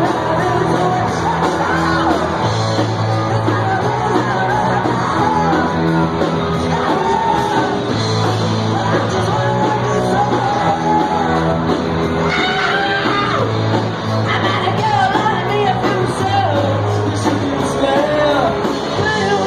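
Band playing live in a large hall, with a vocalist singing and yelling over sustained low notes and a steady beat.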